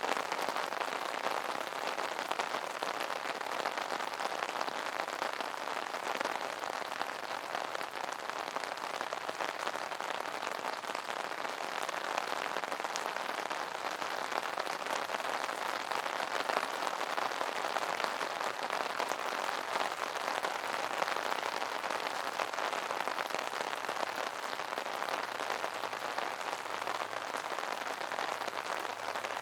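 Rain pattering steadily on an umbrella, a dense, even patter of many small drops.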